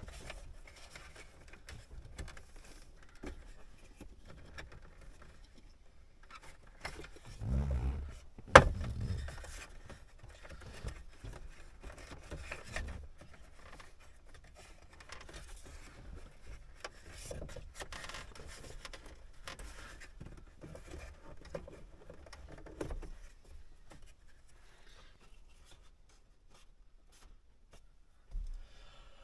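Hands handling wiring and parts under a dashboard: scattered rustling, scraping and small clicks, with a louder thump and a sharp click about eight seconds in.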